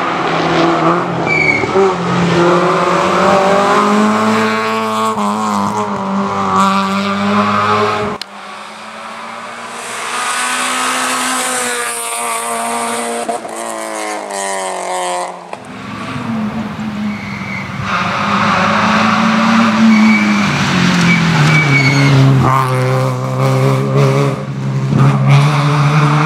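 Peugeot 306 Group A rally car's engine revving hard as it drives the stage, its pitch climbing and dropping again and again through the gears. The sound changes abruptly twice where clips taken from different roadside spots are cut together.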